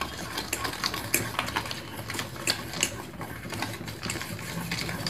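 Metal spoon stirring a thick flour-and-egg-white batter in a stainless steel bowl. It makes quick, irregular clicks and scrapes of metal on metal, a few a second.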